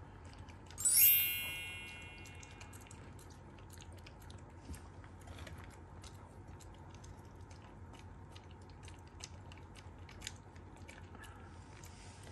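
Black Shiba Inu crunching dry kibble, a steady run of small sharp cracks and clicks as it chews. About a second in, a bright chime rings out and fades, louder than the chewing.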